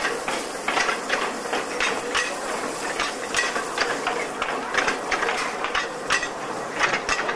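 Narrow-gauge railway wagons rolling slowly over the track, with irregular metallic clanks and knocks, several a second.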